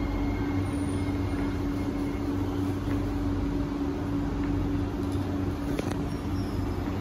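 Steady hum inside a stationary SMRT C151B metro car: the air-conditioning and onboard equipment running with one steady low drone, while the train stands at the platform.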